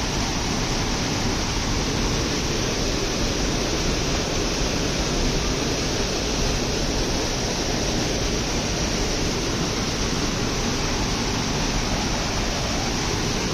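Small waterfall pouring over rock ledges into a pool, a steady, unbroken rush of falling and splashing water.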